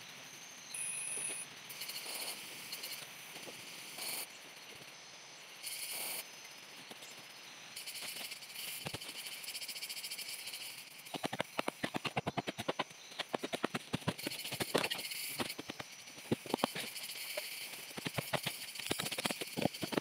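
Forest ambience with frogs calling, then from about halfway in a run of quick, sharp chops: a machete cutting wood.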